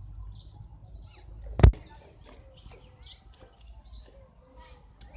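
Small birds chirping in scattered short calls, with one sharp knock about one and a half seconds in.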